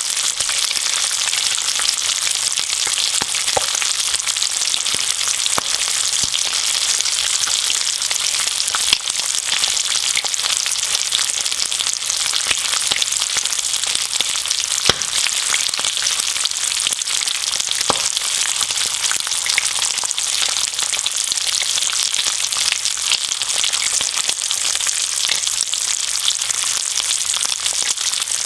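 Bacon and eggs frying in a pan: a steady, dense sizzle of hot fat with scattered sharp pops and crackles.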